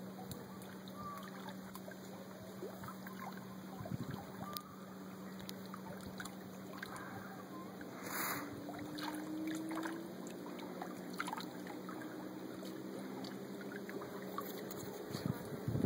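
Distant motorboat engine droning steadily across the lake, its pitch rising briefly about eight seconds in, with light water noise. Wind buffets the microphone near the end.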